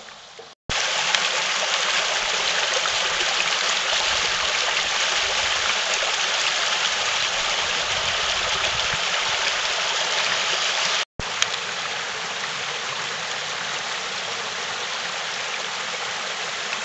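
Mountain stream rushing and splashing over rocks, a steady loud rush that starts abruptly under a second in. It breaks off for an instant about eleven seconds in and goes on a little quieter.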